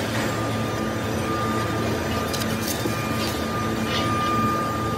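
Workshop machinery running steadily with a high, even whine over a low hum and a few light metallic ticks.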